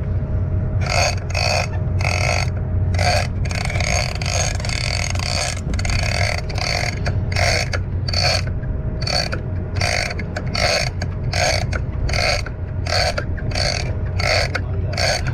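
Shimano Tiagra 130 big-game lever-drag reel being cranked hard against a hooked fish, a short mechanical burst with each turn of the handle, about one and a half turns a second, over a steady low hum.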